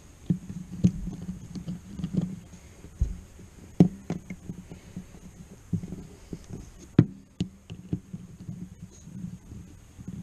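Irregular clicks and knocks of a screwdriver working a radiator hose clamp, with two sharper knocks about four and seven seconds in, over a low rumble.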